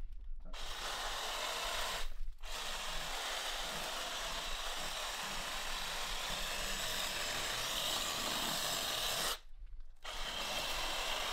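Reciprocating saw running as its blade cuts through the underside of a dense bonsai root ball packed with akadama soil. It runs in long stretches, stopping briefly about two seconds in and again for about half a second near the end before starting up again.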